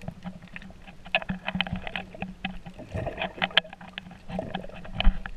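Underwater sound picked up by a GoPro in its waterproof housing while snorkelling: muffled water movement with many scattered clicks and knocks, a sharp knock near the end.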